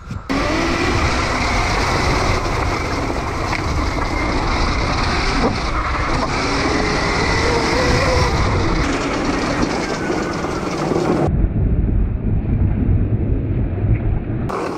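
Homemade electric dirt bike being ridden: a loud, steady rush of wind and tyre-on-gravel noise at the camera, with a faint motor whine that rises and falls with speed. The high hiss drops away suddenly about eleven seconds in.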